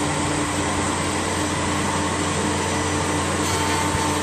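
Dongteng F371 soft-forming edge banding machine running steadily: a continuous motor hum with several held tones over a broad noisy whir as a panel feeds through.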